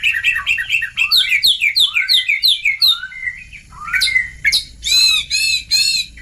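Oriental magpie-robin (kacer) song: a fast run of repeated down-slurred whistled notes, about four a second, then three loud, harsher arched calls near the end. A training and lure recording for young magpie-robins.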